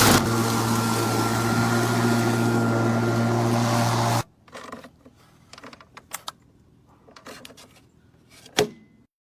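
A lawn mower running steadily, a hum with a high hiss over it, which stops abruptly about four seconds in. Faint scattered clicks follow, then one sharp click near the end.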